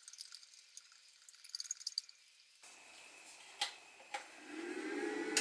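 Portable power station being switched on: two sharp button clicks, then a steady hum with a faint higher whine starts up about a second later as it powers on. Before that come faint, light crackly ticks.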